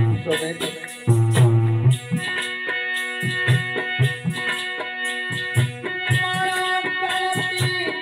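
Harmonium playing a melodic interlude of held, reedy chords, with a hand drum beating low strokes alongside it.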